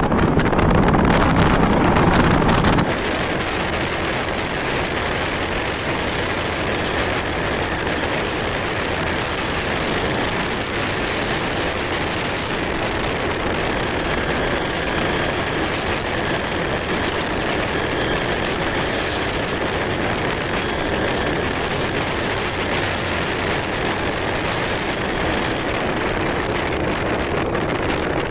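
Yamaha RXZ single-cylinder two-stroke motorcycle running at a steady cruise, heard from the rider's position with wind rushing over the microphone. The wind buffeting is heavier for the first three seconds, then settles to an even rush with the engine underneath.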